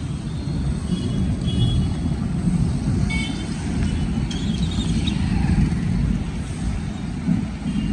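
Street traffic: motorcycles and scooters passing close by on a wet road, with a steady low engine rumble. A few short high-pitched tones sound about three seconds in.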